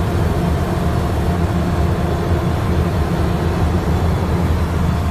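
Steady cabin drone of a plane, heard from inside the cabin: an even, loud low rumble of engine and airflow with a faint steady hum over it.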